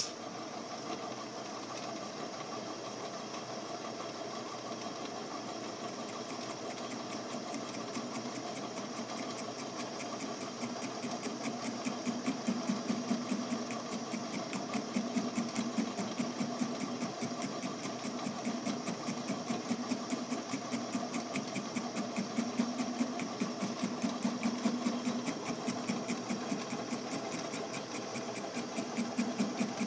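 Craftsman Atlas 12-inch lathe running with a fly cutter taking interrupted cuts on a grade 8 steel bolt head: a steady machine hum with a fast, even tapping each time the cutter strikes the work. The cutting grows louder about ten seconds in.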